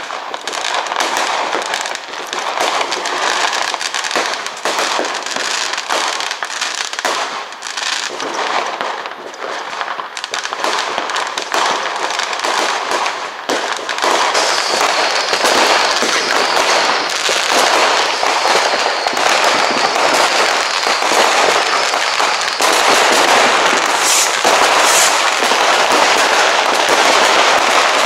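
Many fireworks and firecrackers going off at once, a continuous crackle of bangs that grows denser and louder about halfway through. A high steady whistle runs for several seconds in the second half.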